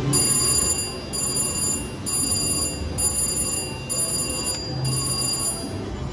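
Slot machine's win rollup: a high, bell-like electronic chime repeating about once a second, six times, as the won credits count up onto the meter.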